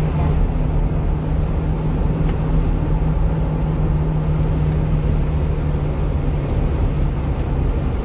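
Engine drone and tyre and road noise inside a 1-ton truck's cab at steady highway speed on wet pavement, with a steady low hum throughout.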